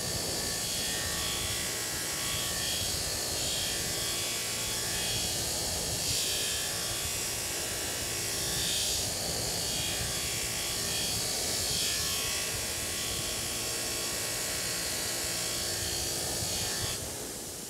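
Bench grinder running, its wire wheel scrubbing rust off the steel shank and head of an Estwing hammer. The sound is steady and drops away near the end.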